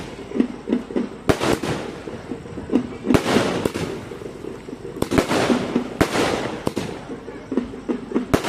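A 120-shot firework cake firing shot after shot: a sharp bang every second or two, several followed by a long hissing crackle as the shells burst.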